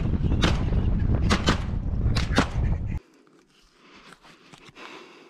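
Loud low rumble of a moving vehicle, with several sharp cracks over it, stopping abruptly about three seconds in; after that only faint sounds.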